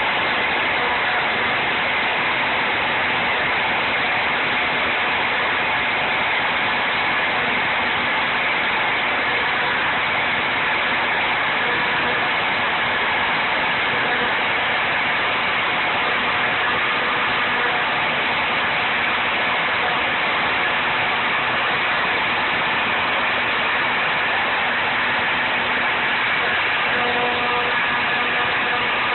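Router spindle of a homemade CNC machine running at a steady, unchanging speed while a 60-degree drill-mill v-carves aluminum: a continuous whir with steady tones through it.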